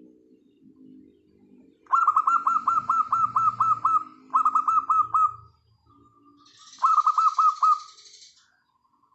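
Zebra dove (perkutut) calling in three quick runs of short, clipped cooing notes, the longest about two seconds, the last near the end. Softer, lower sounds fill the gaps between runs.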